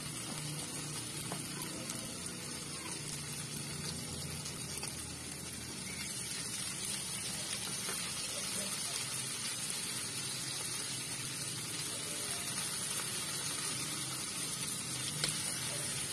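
Native chicken frying in a wok and pot on a gas stove: a steady sizzling hiss that grows slightly louder about six seconds in, with a few light knocks of the spatula against the pot.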